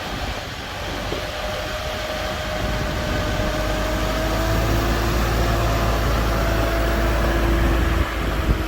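A boat's motor running steadily, growing louder over the first few seconds and holding a low drone with a faint steady whine, with wind buffeting the microphone.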